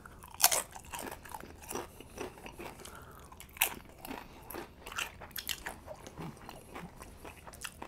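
A person chewing a mouthful of Chipotle burrito filling: irregular mouth clicks and smacks, the loudest about half a second in and again around three and a half seconds in.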